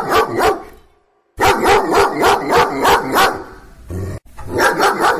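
A dog barking quickly, about four barks a second, in three runs broken by short silences, with a brief low thud just before the last run.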